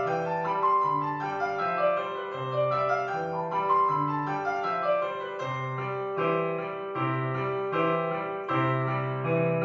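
Piano music: a melody of changing notes over a repeating pattern of low bass notes.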